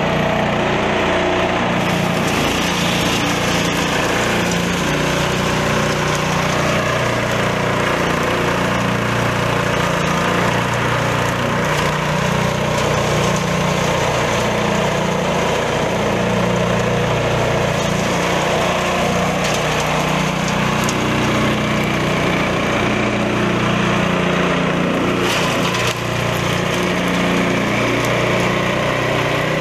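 Small petrol engine running steadily, driving a belt-driven leaf and twig shredder, with the hiss and rattle of green plant material being chopped in the cutting drum.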